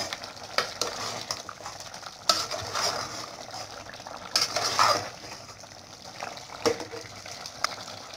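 Chicken liver in tomato liquid sizzling in an aluminium pot while a metal spoon stirs it. The spoon scrapes and clinks against the pot several times over a steady frying hiss as the liquid cooks down.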